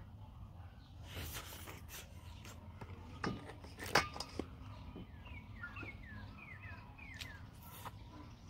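A few sharp cracks and clicks of steamed lobster shell being broken and picked apart by hand, the loudest about four seconds in. In the second half a bird calls a quick run of short falling chirps.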